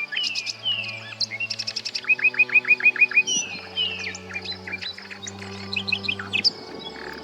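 Common nightingale singing a varied song of downward-sliding whistles, trills and a quick run of about seven repeated notes. Soft background music with low held notes plays under it.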